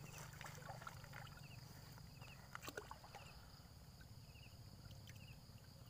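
Near silence: faint outdoor background with a steady low hum, small faint chirps every second or so, and a few faint clicks about two and a half seconds in.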